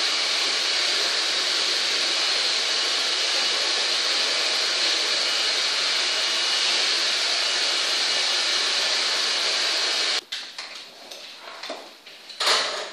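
A hair dryer blowing steadily, switched off abruptly about ten seconds in. After it stops come small handling clicks, with a sharp knock near the end.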